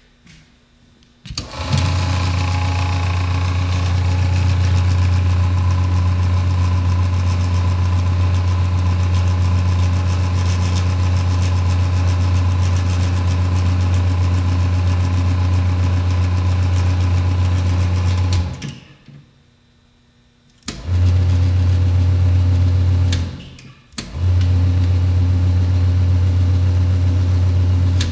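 Jorgensen chip conveyor for a Miyano CNC lathe, driven by a 220 V three-phase motor, running with a steady loud hum. It starts about a second in and runs for about 17 s. It then stops and is switched on twice more for short runs of a few seconds each, cutting off sharply each time.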